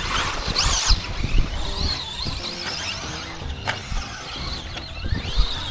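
High whine of several radio-controlled trucks' brushless electric motors racing, overlapping and rising and falling in pitch as they throttle up and back off, the loudest a rising-then-falling sweep about half a second in.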